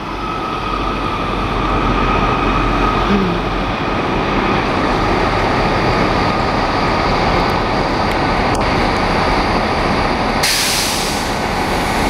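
A pair of coupled GWR Class 150 Sprinter diesel multiple units pulling out and running past, with a steady rumble and, for the first few seconds, a steady whine. The sound carries on as the train draws away. A sudden loud hiss starts about ten seconds in and runs on.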